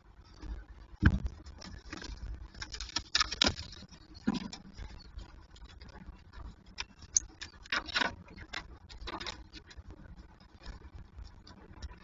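Young peregrine falcons in a nest box feeding on prey and shifting about on a floor of plucked feathers: irregular scratching, rustling and tapping of talons and beaks. A sharp knock comes about a second in.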